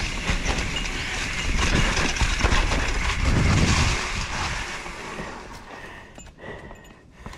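Mountain bike rolling over a trail thick with dry fallen leaves: a steady rushing tyre-and-leaf noise that dies away as the bike slows to a stop about five seconds in, followed by a few light clicks.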